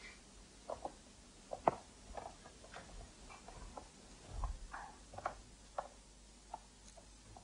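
Faint, irregular footsteps and knocks on a stage floor: a dozen or so scattered taps, with one sharper knock about a second and a half in and a dull thud midway.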